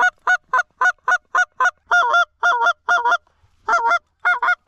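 Specklebelly (white-fronted goose) call blown in a fast run of short, high cackling notes imitating white-fronted geese. The notes come singly at first, then in quick doubles, with a short break about three seconds in.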